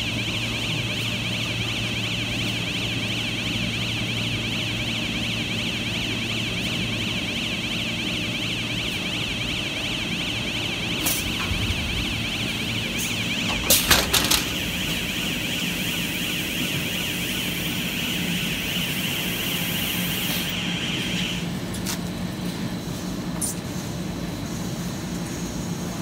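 A warbling electronic alarm sounds steadily over the running hum of a CPP cast film line's winder. About fourteen seconds in come a few sharp cracks as the film is cut and flies loose during the roll changeover, and the alarm stops about seven seconds later.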